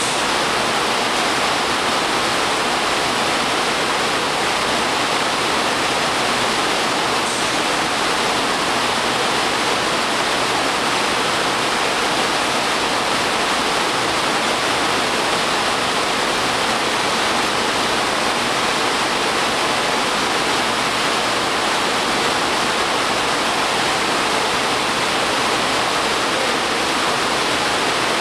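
Steady, loud rushing of air, an even hiss with no breaks.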